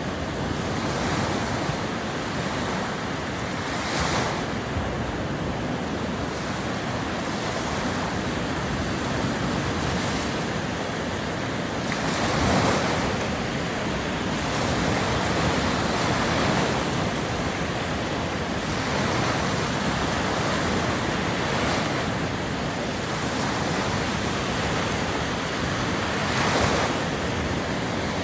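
Lake Michigan waves washing onto the shore: a steady rush of surf with a louder breaking wave every few seconds.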